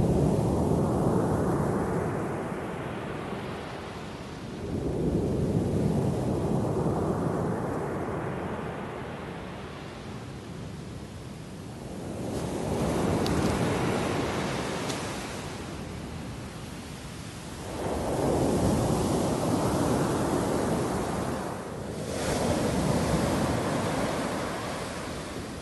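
Mediterranean surf breaking on a pebble beach: five slow swells of rushing water a few seconds apart, each building as a wave breaks and fading as it washes back.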